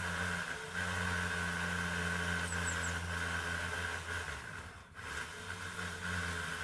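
An engine running steadily with a low hum, fading briefly about five seconds in and then coming back. Three faint, very high, short chirps sound about two and a half seconds in.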